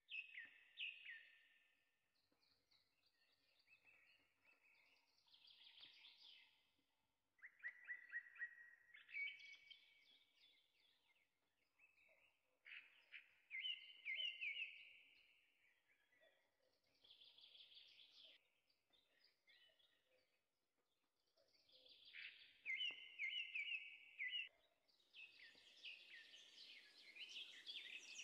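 Faint birdsong: birds singing short chirping, trilled phrases, repeated every few seconds.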